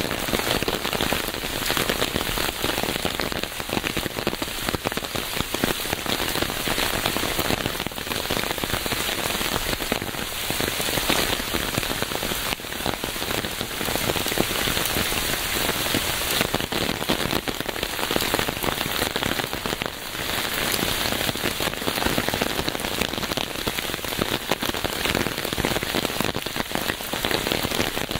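Steady rain falling and pattering on a surface, a dense even hiss with fine drop crackle.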